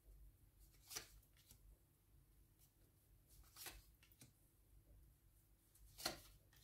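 Near silence with three faint, short card sounds: tarot cards being handled and laid down, about a second in, near the middle and near the end.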